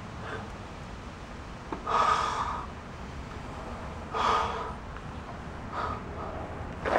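A man blowing hard by mouth into a riding mower's fuel tank filler neck to pressurise the tank and push fuel through the line to prime the carburettor: two strong rushing puffs about two seconds apart and a weaker third near the end, with air escaping because he can't get a good seal.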